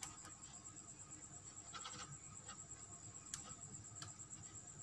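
Very faint room sound: a steady high thin whine with a few soft clicks, the sharpest about three seconds in.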